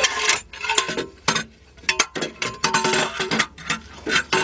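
Irregular metallic clinks and clanks of hand tools and exhaust parts being handled, some hits leaving a short ring.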